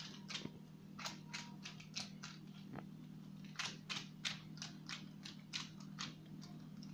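Faint crinkling and soft crackles of parchment baking paper as a hand presses rounds of yeasted dough flat on a baking tray, about three crackles a second, over a steady low hum.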